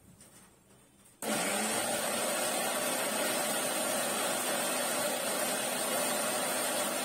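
Electric mixer grinder switched on about a second in, its motor then running steadily at speed with a high whine as it blends ice and chilled milk in a stainless steel jar.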